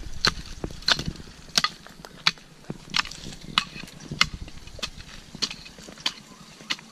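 Garden hoe chopping into soil, about eleven strikes at an even pace, roughly three every two seconds, as it cuts a groove around a young tree.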